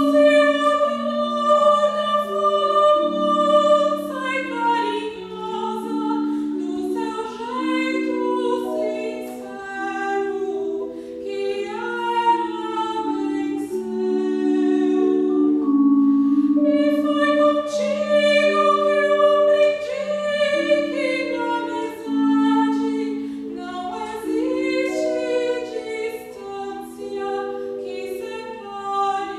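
A soprano singing with vibrato over a vibraphone played with mallets, its notes held and ringing on under the voice.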